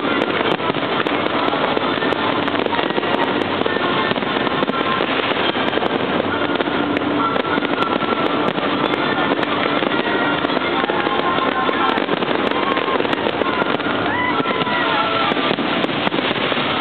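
Large fireworks display going off: a dense, steady crackling and banging from many shells bursting at once.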